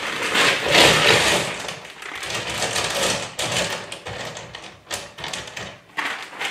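Tiger's eye stones poured from a plastic bag into a hard rubber tumbler barrel, clattering against each other among the crinkle of the bag, for about three seconds. Then come scattered clicks and knocks as the stones are settled by hand.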